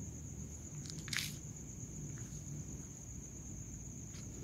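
Cricket trilling steadily at one high pitch, with a short sharp click about a second in.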